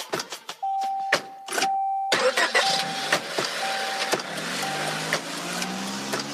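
Car sounds: a warning chime dinging over and over, with clicks. An engine starts about two seconds in and revs up toward the end.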